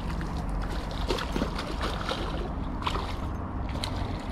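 Water splashing and gurgling as a hooked fish is reeled in at the surface of a small creek, with scattered small clicks and ticks from the spinning reel and line handling.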